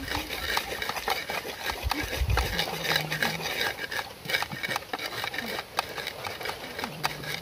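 Wooden pestles pounding and grinding in earthenware mortars, crushing red chilies and a ground mixture: an irregular run of sharp knocks, with heavy low thumps in the first two and a half seconds.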